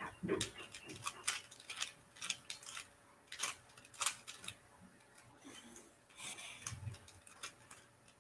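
A Rubik's cube's plastic layers being twisted by hand: a run of soft, irregular clicks and clacks, a few per second.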